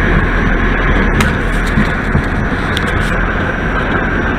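Subway train running, heard from inside the car: a loud, steady rumble and rattle of the wheels on the track, with a steady high whine above it.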